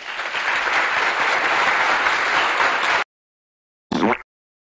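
A group of young hockey players shouting and cheering together in a huddle, a dense noisy cheer that cuts off abruptly after about three seconds. About four seconds in comes a brief separate sound that falls in pitch.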